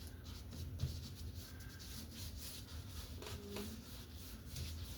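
Paintbrush rubbing acrylic paint onto a stretched canvas: soft, scratchy strokes over a low steady hum.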